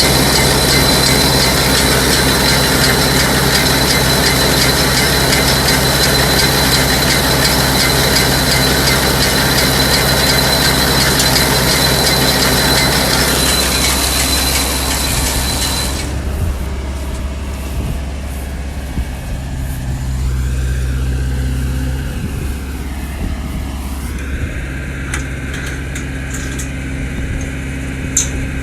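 Tractor engine running with a Vermeer 504c round baler. A steady high whine and hiss cut off suddenly about halfway, leaving the engine running lower and quieter.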